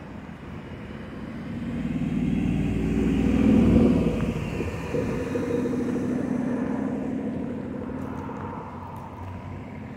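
Cars driving past on a road close by. The traffic noise swells to its loudest a few seconds in as one vehicle goes by, then another passes and the sound fades away.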